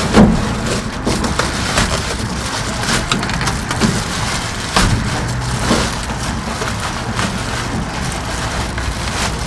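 Reflective foil bubble-wrap insulation crinkling and rustling as it is pushed by hand up into a van's sheet-metal wall cavity, with irregular crackles throughout.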